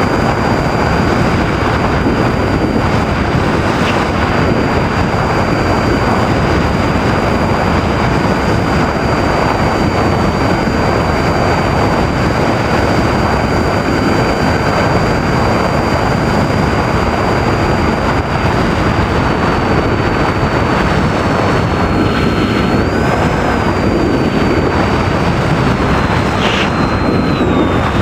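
Onboard audio from a flying FPV model airplane: heavy rushing wind noise over the microphone with the motor's thin, high, steady whine, which wavers and drops in pitch a few times near the end as the throttle changes.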